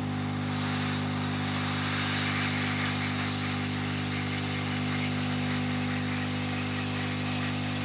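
Hot air rework station's reflow gun blowing at low (40%) airflow: a steady motor drone with an even hiss of air, heating solder paste on a circuit board.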